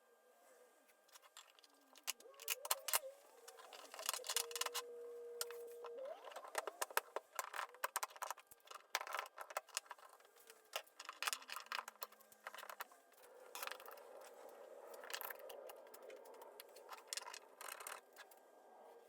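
Workshop clatter: an irregular run of light clicks, knocks and metallic clinks, as of small parts and tools being handled, with a brief steady whine about a quarter of the way in.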